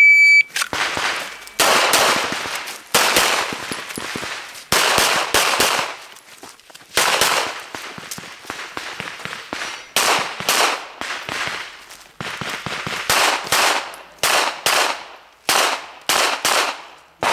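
An electronic shot timer beeps once, then a long string of pistol shots follows, many in quick pairs, in clusters with short gaps between them. Each shot rings with a short echo.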